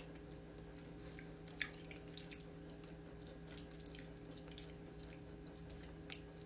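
Faint steady room hum with a few small, soft clicks scattered through it.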